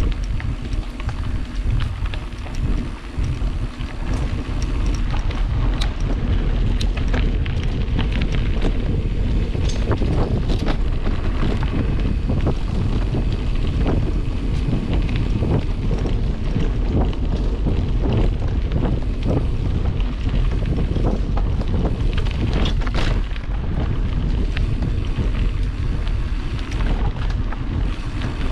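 Heavy wind buffeting on the microphone, a steady low rumble, with many irregular clicks and knocks mixed in.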